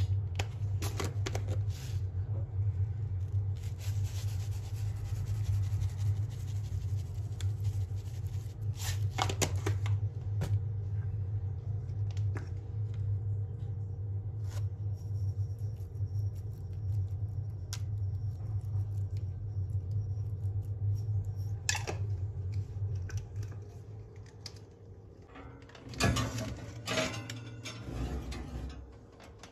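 A steady low hum, with small scattered clicks and taps as seeds are shaken from a jar over a dish. Near the end comes a short run of knocks as a glass baking dish is slid onto a metal oven rack.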